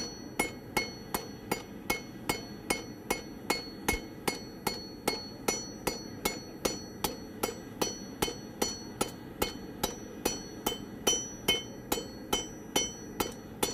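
Hand hammer striking hot mild steel on an anvil in a steady rhythm of about three blows a second, each blow ringing: the stem of a coat hook being hammered from an octagon to round while it is turned.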